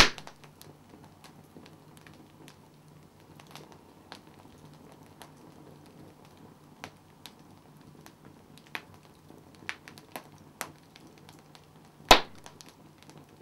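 Wood fire crackling: logs burning with scattered small snaps and two loud pops, one right at the start and one near the end.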